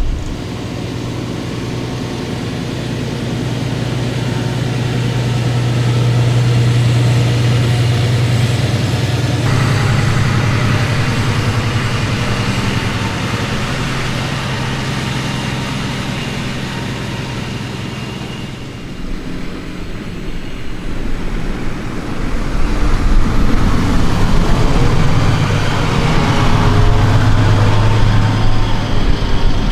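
Fendt 936 Vario tractor engine running steadily as it pulls a slurry tanker, with a broad rushing noise above the engine hum. Just under two-thirds of the way through the sound changes and grows louder and deeper.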